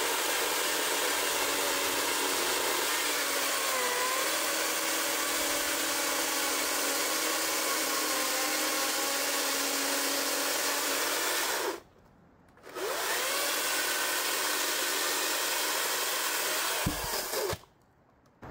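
Cordless electric chainsaw running .404 chain on a 36-inch bar, cutting through a big log with a steady motor whine and chain noise. The motor cuts out for about a second midway, then resumes. Near the end there is a knock as the cut finishes and the round drops off, and the saw stops.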